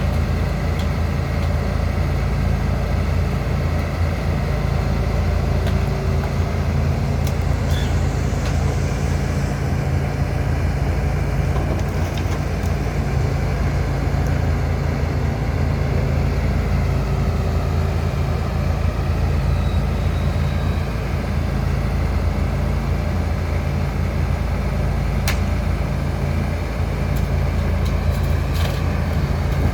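John Deere 245G LC excavator's diesel engine running steadily as it works, with a few brief sharp clicks now and then.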